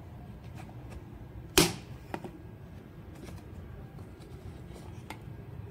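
Clicks and light knocks of a hard plastic jewellery organizer box being handled by hand, with one sharp click about a second and a half in and a few fainter ticks around it.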